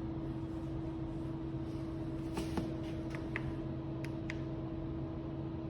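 Steady low machine hum, with a few short clicks and two brief high beeps partway through: buttons being pressed on the control panel of a Maytag commercial washer.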